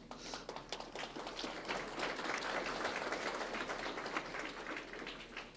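Audience applauding, swelling over the first two seconds and dying away near the end.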